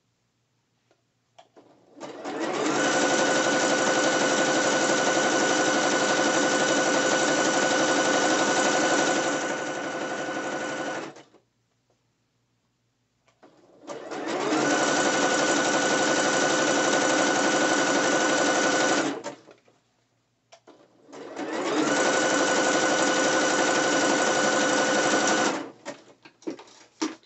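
Juki electric sewing machine stitching fabric in three runs. The first lasts about nine seconds and eases off slightly near its end; two shorter runs of about five seconds follow. Each run speeds up quickly and stops abruptly, with faint handling clicks in the pauses between them.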